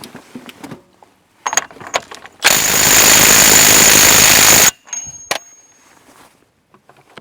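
Impact wrench hammering the CV axle nut back on for about two seconds, a loud rapid rattle with a high whine, preceded and followed by a few sharp clicks.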